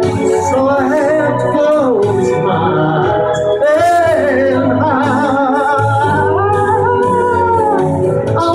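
A man singing long, wavering held notes into a microphone over a karaoke backing track of sustained chords.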